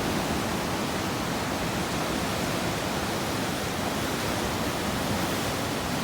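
Steady, even rushing of ocean surf and wind at a beach, with no single wave standing out.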